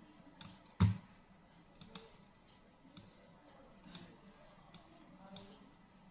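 Sharp, quiet clicks of a computer mouse, roughly one a second, with one much louder click and thump a little under a second in.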